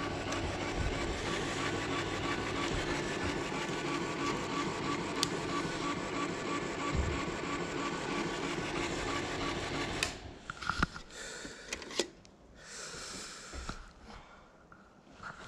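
Carousel slide projector's cooling fan running steadily with a hum, then stopping abruptly about ten seconds in. A few sharp clicks and knocks follow as the projector is handled.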